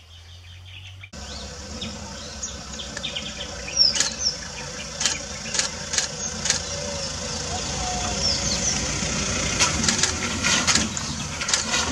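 Outdoor ambience that jumps louder about a second in: a steady hum and hiss with scattered bird chirps, broken by a series of sharp clicks and knocks.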